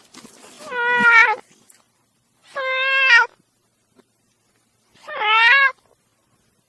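Angry cat meowing three times, drawn-out calls of about a second each, spaced a second or so apart. The first call opens with a breathy hiss.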